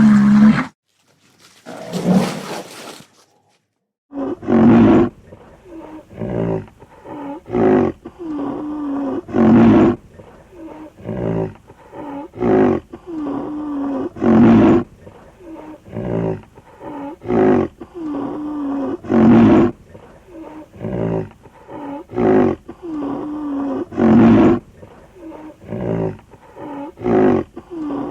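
A rhinoceros calling: two short calls, a brief pause, then a long, regular series of loud huffing grunts about every two and a half seconds, with lower moaning calls between them.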